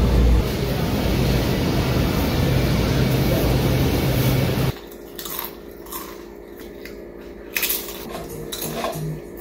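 Loud, even shop noise while a wire shopping cart is pushed along the aisle; it cuts off suddenly just under halfway through. Then, in a quiet room, Pringles potato crisps being chewed: a scatter of short, sharp crunches.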